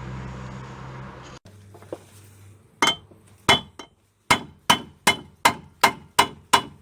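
Hammer striking the steel brake disc to knock out the section cut with a grinder, each blow ringing metallic. Two separate blows, then a steady run of about three blows a second. Before the blows, a fading mechanical hum cuts off about a second and a half in.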